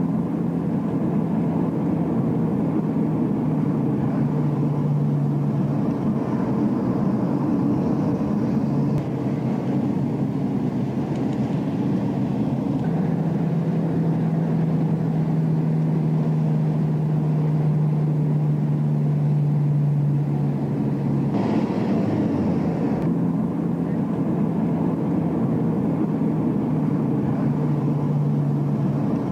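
Car engine and road noise heard from inside the moving car: a steady drone with a low hum that shifts slightly in pitch as the speed changes. About 21 seconds in, a brief hiss of higher noise lasts a second or two.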